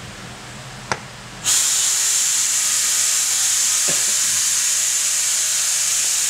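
A loud, steady hiss cuts in suddenly about a second and a half in and runs on unchanged, strongest high up. A short click comes just before it, and a faint low knock comes about four seconds in.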